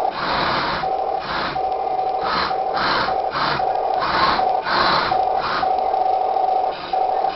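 Remote-control model tank's electric track motors and gearboxes whirring in short bursts, about nine of them, as the tank pivots in place on a wooden tabletop. A steady high hum runs underneath and drops out during each burst.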